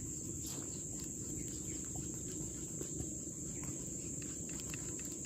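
A steady, high-pitched insect chorus over a low rumble, with a few faint scattered ticks.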